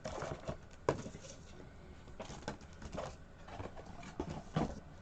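Scattered light clicks and brief rustles of booster packaging and small plastic figures being handled.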